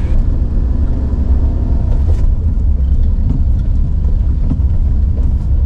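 Steady low rumble of a car driving slowly along an unpaved village road, heard from inside the cabin, with a few faint ticks and rattles.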